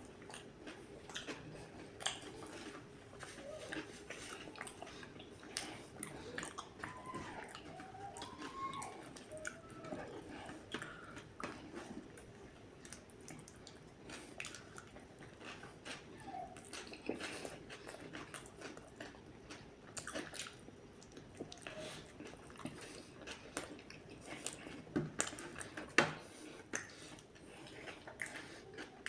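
Close-miked chewing and biting of a burger with a meat patty: soft wet mouth sounds and crunches with scattered sharp clicks, the sharpest a little before the end.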